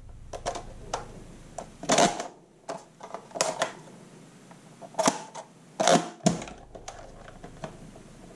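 Plastic clicks and clacks of a Nerf Modulus Mediator toy blaster being handled, a few sharp ones with the loudest about two, five and six seconds in.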